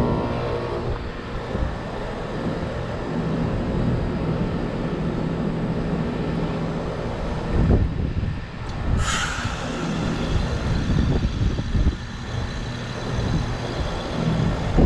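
Carrier Comfort heat pump outdoor unit running in defrost with a steady low hum. About nine seconds in there is a sharp hiss that falls in pitch.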